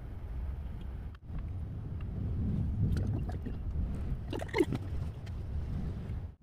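A steady low background rumble with a few faint light taps and handling sounds as hands fold and crimp dumpling wrappers on a wooden cutting board.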